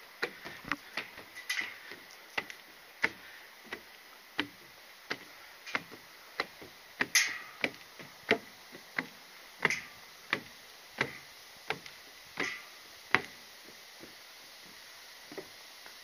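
Walking footsteps on a hard path: a steady series of sharp knocks about every two-thirds of a second that stops about three-quarters of the way through.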